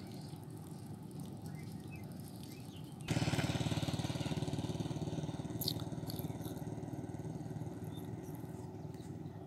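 A small vehicle engine comes in suddenly about three seconds in, loud and steady, then slowly fades.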